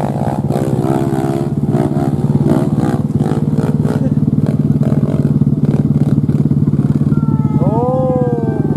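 Off-road motorcycle engine running steadily close by, an even low hum with fast regular pulsing. Voices talk over it in the first few seconds, and a short call rises and falls in pitch near the end.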